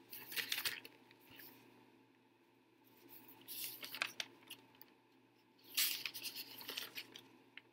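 Sheets of paper rustling as they are handled and shuffled, in three short bursts.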